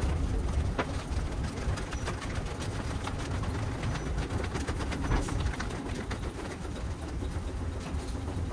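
Steady low rumble of a vehicle in motion, with scattered light clicks and rattles over it.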